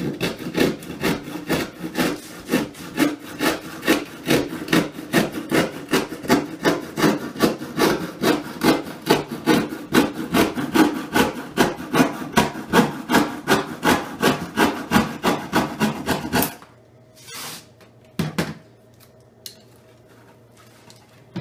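Handsaw cutting through a wooden board with steady rhythmic strokes, about two or three a second. The sawing stops about sixteen seconds in, and a couple of short knocks follow.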